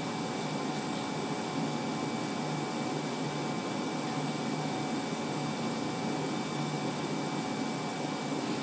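80-watt 6090 CO2 laser cutter running: a steady whirring hum and air hiss from the machine, with a few faint steady whine tones over it.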